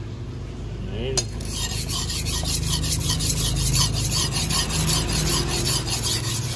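Steel knife blade, forged from M30 gun-barrel steel, being rubbed back and forth on a wet whetstone in quick, even strokes that start about a second in. This is a test sharpening to judge the hardening: the stone should grip the edge moderately.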